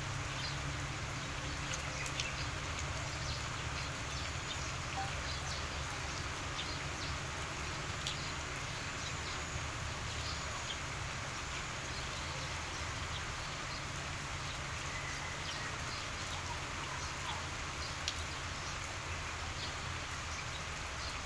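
Steady outdoor background noise: an even hiss over a low hum, with faint scattered ticks.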